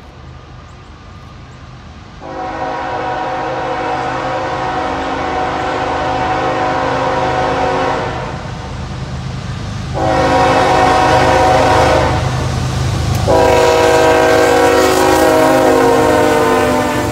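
Norfolk Southern freight train led by ES44AC locomotive 8072 sounding its air horn in three blasts as it approaches: a long blast, a shorter one, then another long one. This is the long-short-long ending of a grade-crossing warning. Under the horn the diesel locomotives rumble, growing louder as they draw near and pass.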